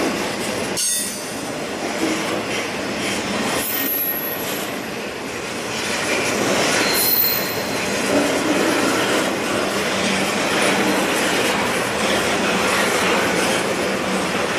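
Intermodal freight train's well cars rolling past, a steady rumble and rattle of steel wheels on the rails, with brief high-pitched wheel squeals about four and seven seconds in.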